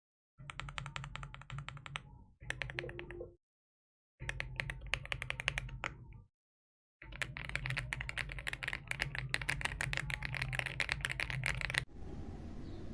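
Typing on an AULA F75 MAX mechanical keyboard with pre-lubed switches and PBT keycaps: rapid key clacks in four bursts, cut apart by dead-silent gaps. The longest burst comes last. Near the end the typing stops and a steady background noise takes over.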